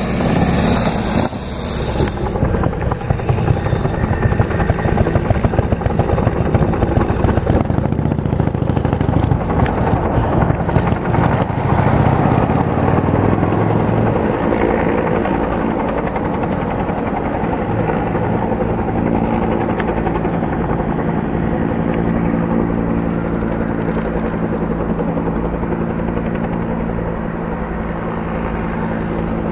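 A firefighting helicopter flying with its water bucket, the rotor's rapid blade beat loud through the first half and settling into a steadier, even hum with the engine from about halfway through.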